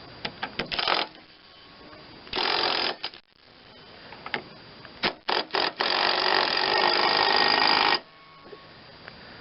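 Hand ratchet wrench working hardware on a mower-deck spindle: a few sharp metal clicks, then a short spell of fast ratcheting. After more clicks comes a longer spell of fast ratcheting of about two seconds, which stops abruptly.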